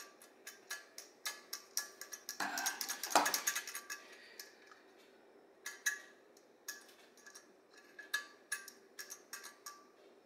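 Light metallic clicks and taps as the float and its hinge pin are handled and worked in the body of an Autolite 2100 carburetor. A louder burst of rattling and scraping comes about two and a half seconds in.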